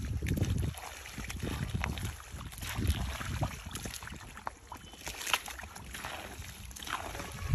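Hands digging and squelching through soft, wet mud, with small splashes and wet slaps at irregular intervals. Wind rumbles on the microphone until just under a second in.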